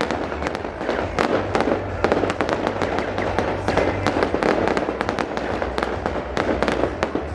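Fireworks going off in rapid succession: many sharp bangs and crackles overlapping without a break.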